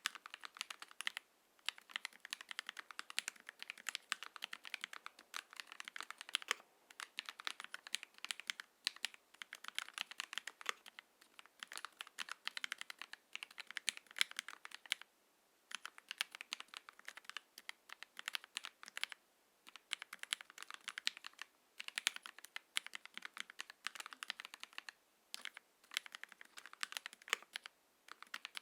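Typing on an Ikki68 Aurora mechanical keyboard with hand-lubed Gateron X linear switches, an aluminium plate and GMK keycaps: fast runs of keystrokes clacking as the keys bottom out, with short pauses between the runs.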